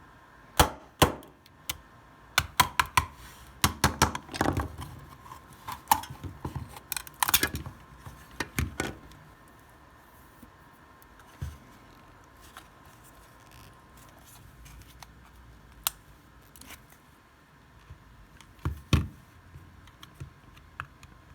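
Hands handling small hard parts: a quick run of irregular clicks, knocks and rattles, densest in the first half, then a few isolated knocks later on. A faint steady whine sits underneath.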